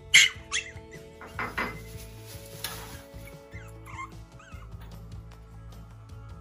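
Pomeranian puppy yapping excitedly for her food: two sharp, loud yaps just after the start, more yaps about a second later, then short wavering whines.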